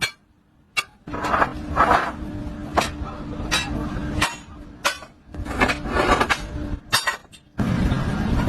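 Metal workshop work: repeated sharp knocks and clinks of tools on metal over a steady machine hum, in short segments that cut off abruptly.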